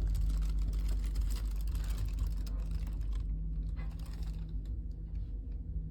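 Passenger train in motion, heard from inside the carriage: a steady low rumble with a constant hum, overlaid by faint rapid clicking.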